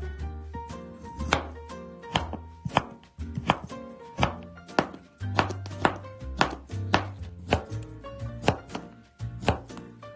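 Chef's knife chopping zucchini on a cutting board, a sharp knock about once or twice a second as it slices, julienne-cuts and dices. Light background music with a bass line runs underneath.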